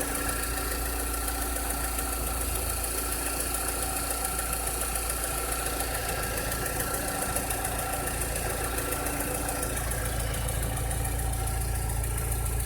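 Volkswagen SpaceFox 1.6 flex engine idling steadily, with a fast, even ticking running along with it: the strange engine noise of unknown cause that the owner is recording.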